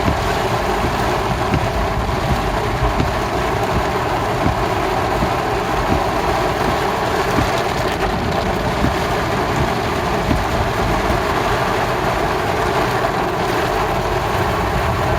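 Steady noise of a heavy rain downpour mixed with a vehicle's engine and tyres on a wet road, with small ticks scattered through it.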